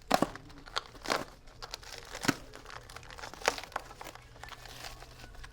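Packaging being handled and torn open: crinkling and tearing wrapping material with irregular sharp crackles and rustles.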